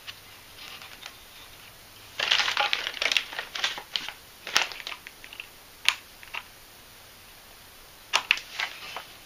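Handling noise of hands working a rubber fuel line loose from the plastic vacuum fuel pump on a Briggs & Stratton Intek engine: runs of sharp clicks and crinkles, with a pause of about a second and a half near the end.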